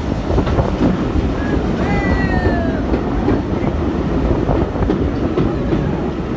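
Heritage railway coaches running through a tunnel, heard from a carriage window: a loud, steady rumble of wheels on rail, with a brief high squeal falling in pitch about two seconds in.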